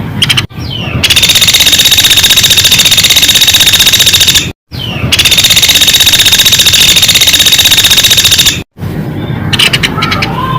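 Recorded lure call of the platuk beras (common flameback woodpecker): a loud, very fast rattling trill. Two long rattles of about three and a half seconds each run back to back with a short break between them, framed by shorter rattles at the start and end.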